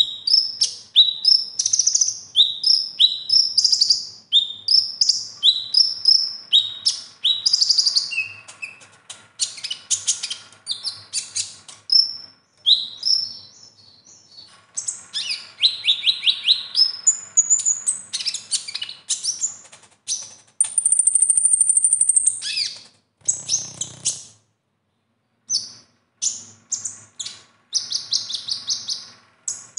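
Male van Hasselt's sunbird (kolibri ninja) singing, its song filled with phrases copied from other birds. It opens with a run of quick, high, down-slurred chirps at about two a second, then moves into varied twittering trills and one long, high buzzing note. A short low thud comes near the end.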